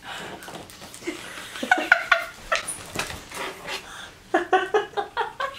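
Excited shrieks and laughter from a woman and a man, ending in a quick string of short laughing bursts.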